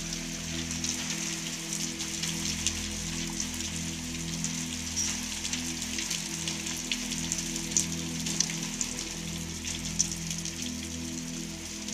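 Hail and heavy rain falling on a concrete yard: a steady hiss of rain with many sharp clicks of hailstones striking.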